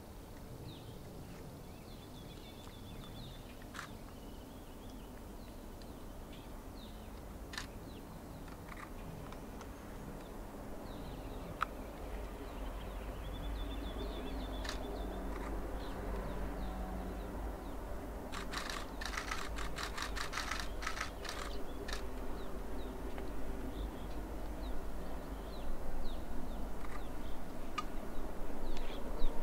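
Distant diesel locomotives of a Montana Rail Link freight train working across a trestle: a low engine rumble that builds steadily louder through the second half. Birds chirp now and then, and a quick run of sharp clicks comes about two-thirds of the way in.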